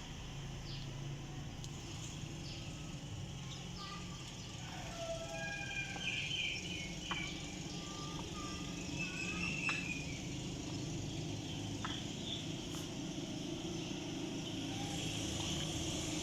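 Birds chirping in short whistled notes and little glides, mostly in the middle stretch, over a steady low rumble, with a few faint sharp clicks.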